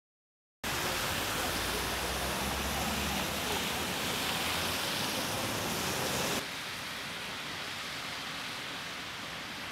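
Steady outdoor ambience of a snowy city street: an even hiss with no distinct events, starting abruptly just under a second in and dropping to a quieter hiss about six seconds in.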